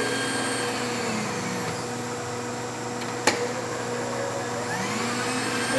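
Milling machine table power feed driving the table in rapid traverse. Its motor whine falls in pitch over the first two seconds and climbs again near the end, over the machine's steady hum and whine. One sharp click about three seconds in.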